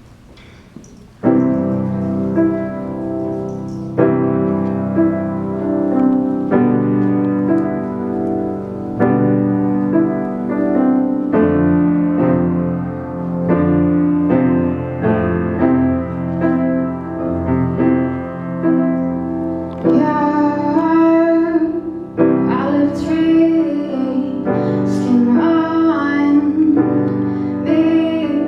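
Piano playing the chordal introduction to a ballad, starting about a second in, with chords changing every couple of seconds. A woman's singing voice joins over the piano about two-thirds of the way through.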